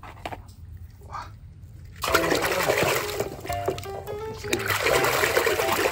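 A hand sloshing and splashing through foamy soapy water in a tub. It starts suddenly about two seconds in, with background music.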